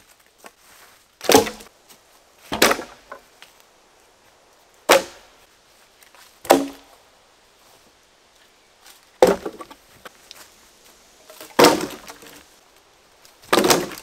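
Wooden logs thrown down one at a time onto a pile of logs: seven sharp knocks of wood on wood, several followed by a short clatter as the logs settle.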